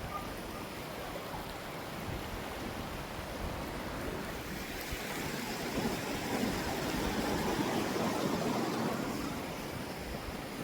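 Water rushing over a small waterfall and stream, a steady noise that swells for a few seconds in the middle, then eases.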